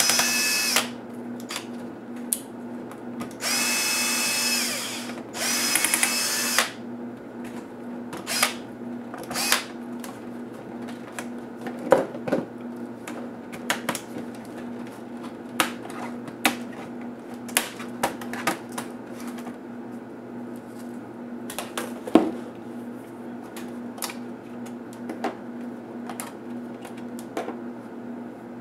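Cordless electric screwdriver whirring in three short runs as it backs out the bottom-case screws of an Acer Extensa 4620 laptop. After that come scattered sharp clicks and taps of the plastic covers being pried loose and lifted off.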